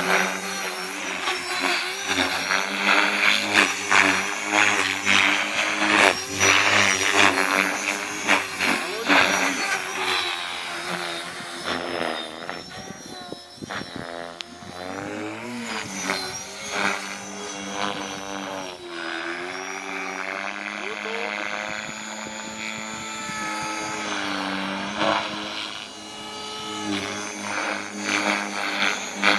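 Align T-Rex 450L Dominator electric RC helicopter on 6S power flying aerobatics: the motor and gear whine and the rotor blades' chop rise and fall in pitch with each manoeuvre. The pitch sweeps up and down sharply around the middle and holds steadier later on.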